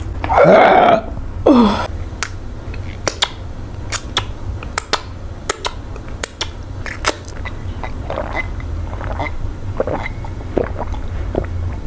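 Close-miked eating sounds: two loud burps in the first two seconds, each falling in pitch, then chewing of eba and okro-melon soup with many sharp, wet mouth clicks and smacks, over a low steady hum.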